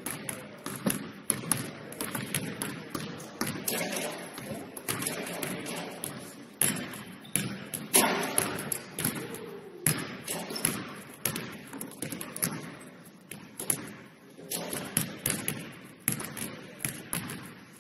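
Basketballs bouncing irregularly on a hardwood gym floor, several sharp thuds scattered close together, with people talking in the background.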